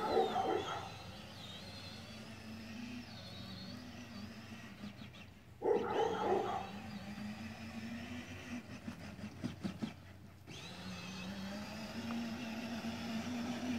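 Electric drive motor of a Power Wheels ride-on toy Corvette running with a steady whine as it drives over grass. It cuts out briefly about five and a half and ten seconds in, and its pitch rises slowly near the end. Two short, louder sounds come near the start and about six seconds in.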